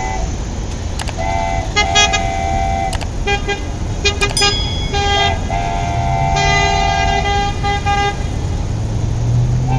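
Repeated vehicle horn toots, a run of short beeps and a few longer held notes, with a few sharp clicks and a low hum underneath.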